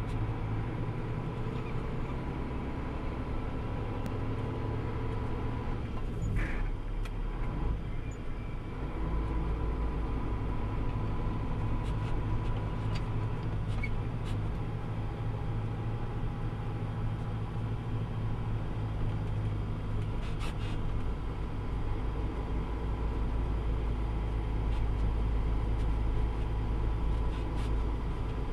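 Truck engine running with a steady low rumble as it drives slowly over snow-covered roads, picked up by a camera on the outside of the hood, with a few faint clicks.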